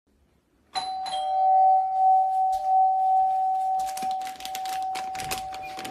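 Doorbell chime ringing a two-note ding-dong about a second in, its tones ringing on for several seconds, followed by a run of sharp clicks and knocks.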